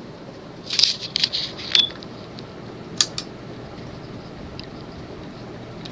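Emerson Roundnose ceiling fan's reversible shaded-pole motor running steadily, a low hum and whoosh that has smoothed out after running a while. A cluster of light metallic clicks and jingles comes about a second in, and two more single clicks around three seconds.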